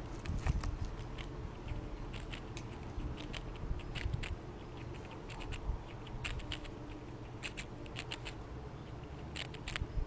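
Fox squirrel cracking and chewing seeds close to the microphone: a run of irregular sharp clicks and crunches. Its body bumps and rubs against the camera at the start.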